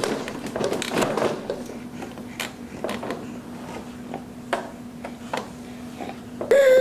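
Plastic toys on a baby's activity seat clicking and knocking as the infant grabs and turns them, with a faint steady hum in the middle. Near the end the baby lets out a loud vocal sound that falls in pitch.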